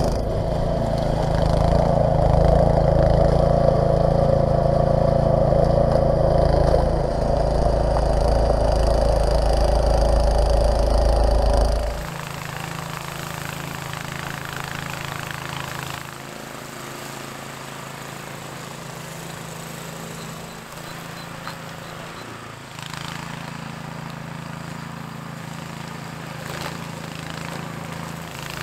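Snowblower engine running steadily while throwing snow: loud and close for about the first twelve seconds, then abruptly quieter and more distant.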